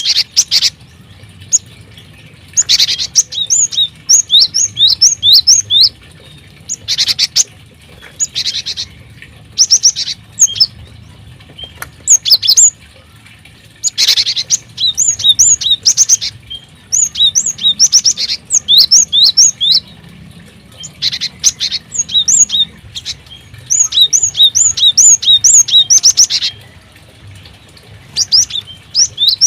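Small aviary birds chirping in quick runs of repeated high notes, in bouts of one to three seconds with short pauses between them.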